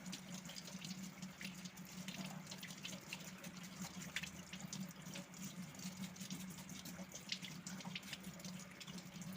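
Tap water running lightly over a washing machine's mesh inlet water filter while it is scrubbed with a toothbrush, with many small scratchy splashes over the flow. A steady low hum runs underneath.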